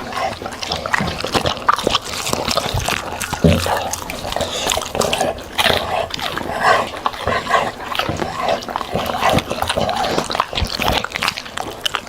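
A dog eating, with continuous wet chewing and smacking made up of many quick clicks.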